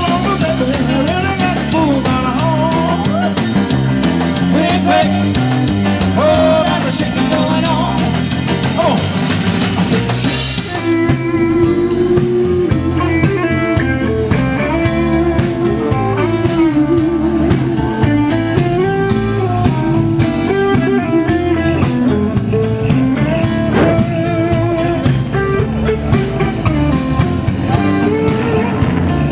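Live band playing a blues number, with drums, bass, keyboard and guitar. The sound changes abruptly about ten seconds in.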